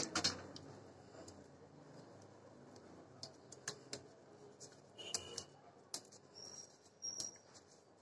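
Faint, scattered clicks and taps from fingers rubbing a turmeric-and-lemon marinade into a whole pomfret on a plate. A few brief, high, thin chirps come in the second half.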